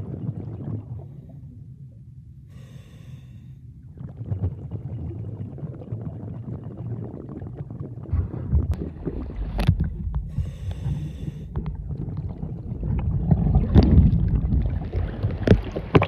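Underwater sound from a hand-held camera in shallow sea water: a steady low rumble of moving water with crackling bubbles. Twice, about seven seconds apart, a swimmer's breath comes through as a short hiss. The water noise grows louder near the end, with sharp splashes as the camera comes up out of the water.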